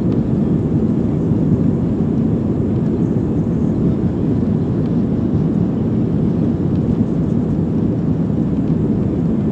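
Steady low rumble inside a jet airliner's cabin as it taxis on the ground, its jet engines running.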